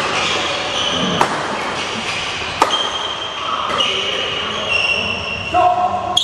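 Badminton rackets striking a shuttlecock in a doubles rally, sharp cracks about every second and a half in the first few seconds, ringing in a large hall, over high-pitched squeaks.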